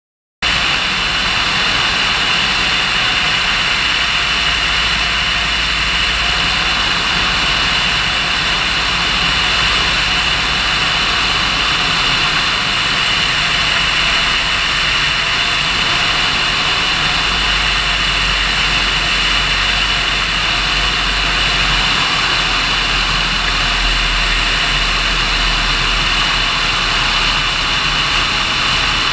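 Propeller aircraft's engine and slipstream heard from on board in flight: a steady, loud drone that starts suddenly about half a second in and holds even throughout.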